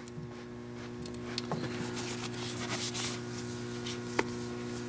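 A cloth rubs and wipes along the oiled, hardened dovetail bed ways of a Hardinge HLV-H lathe, with a few light clicks, the sharpest near the end. A steady electrical hum runs underneath.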